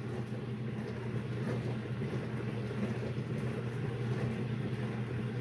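Ava dishwasher running mid-cycle: a steady motor hum with water spraying inside, at the rinse stage.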